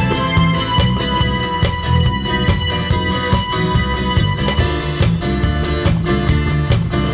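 Instrumental break of a Russian pop-rock song: keyboard and guitar over bass and a steady drum beat, without vocals.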